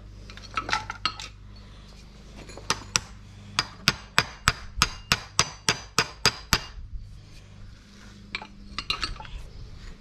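Hammer blows on steel while chain idler bearings are being replaced on a New Holland round baler. A few scattered clinks of metal, then a quick run of about a dozen sharp strikes, roughly three to four a second, in the middle, and more light clinks near the end.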